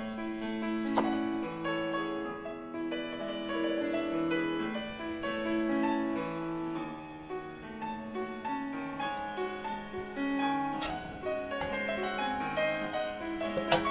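Background piano music, a slow melody of held notes and chords, with a sharp knock about a second in and a few fainter ones later.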